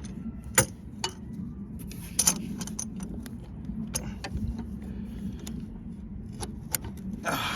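A few sharp, separate metallic clicks and clinks of a tool working at a car's oil filter housing to crack it loose, over a steady low hum.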